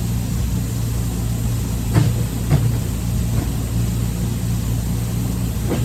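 A steady low mechanical drone like an engine running, with a few short knocks about two seconds in, again half a second later, and near the end.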